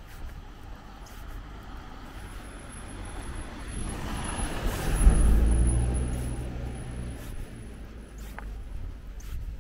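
A motor vehicle driving past, its engine and tyres growing louder to a peak about halfway through, then fading away.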